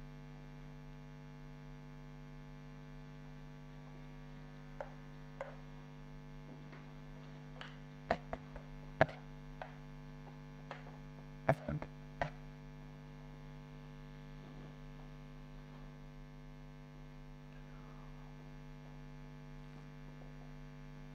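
Steady electrical mains hum, with a scattering of sharp clicks and knocks from whiteboard work, marker and duster against the board, clustered between about five and twelve seconds in.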